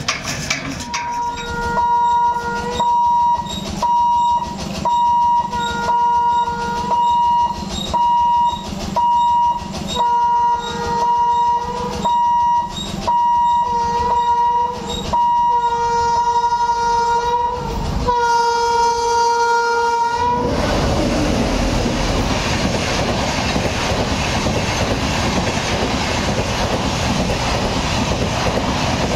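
Train horn sounded in a long run of short blasts about once a second, then two longer blasts, as the train approaches the level crossing. From about twenty seconds in, the express rushes past at speed, its coaches' wheels clattering over the rails in a loud, steady roar.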